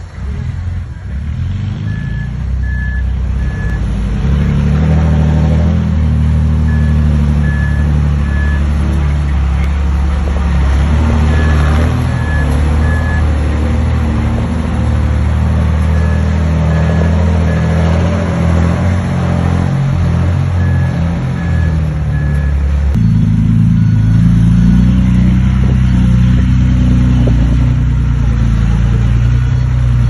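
Heavy diesel earthmoving machinery running hard, with a reversing alarm beeping in sets of three every four to five seconds. The engine note steps to a different pitch about three-quarters of the way through, and the beeping stops.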